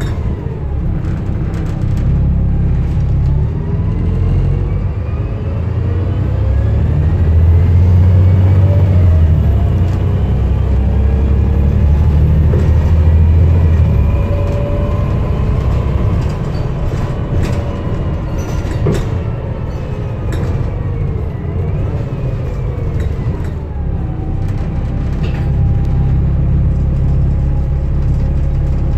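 Volvo B7TL double-decker bus under way, its six-cylinder diesel and driveline heard from the upper deck as a heavy low rumble with a whine that rises and falls through the gears. It pulls hardest from about a quarter to halfway in, eases off, and settles to a steadier note near the end.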